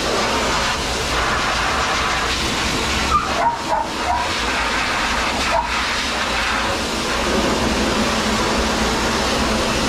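Dog grooming dryer blowing steadily, an even loud hiss of air over a dog's coat. A few short high whimpers from a dog come about three to four seconds in and once more just before six seconds.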